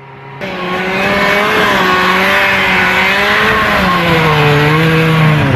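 Snowmobile engine revving at high throttle, its pitch wavering. The pitch steps down about four seconds in and falls away at the end as the sled works on a steep, icy hill.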